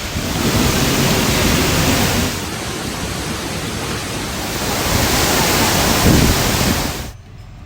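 Waterfall, loud and steady rushing water, which cuts off abruptly near the end.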